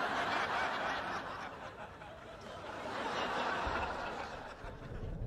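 Sitcom studio audience laughing at a punchline: a swell of laughter that eases about two seconds in and rises again before fading.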